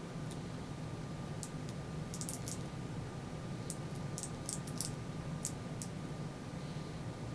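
Small sharp clicks of a Master Lock three-wheel combination padlock's number wheels being turned with the shackle held under tension. The clicks come in irregular clusters, over a steady low hum.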